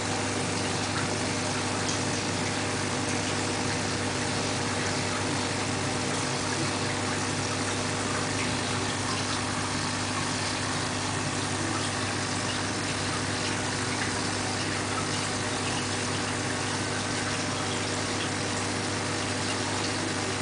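Steady low machine hum with an even hiss over it, unchanging in level.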